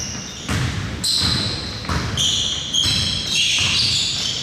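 Basketball game play: sneakers squeaking repeatedly in short high squeals on the court, with a basketball bouncing.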